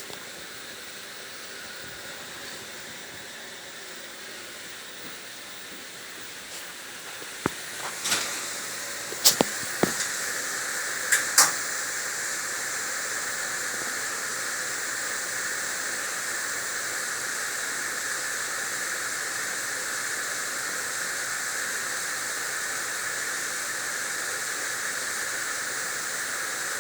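Steady hiss of ship machinery, which grows louder about eight seconds in, with a handful of sharp clicks and knocks close together around that point.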